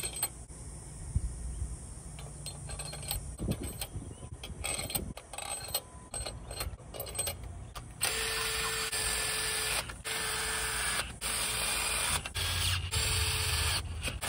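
Head bolts being dropped into a cylinder head with light metal clicks, then a cordless power driver spinning them down in several runs of a second or two each, starting about eight seconds in.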